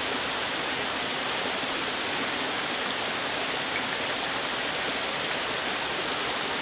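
Steady rush of running water flowing into a hatchery tank, even and unbroken.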